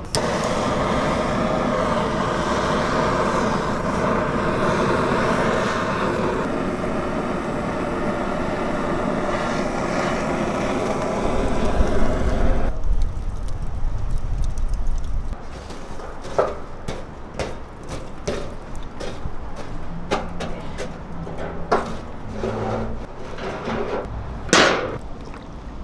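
Handheld gas torch flame roaring steadily against charcoal briquettes to light them, cutting off about twelve seconds in. After that, scattered metallic clinks and knocks.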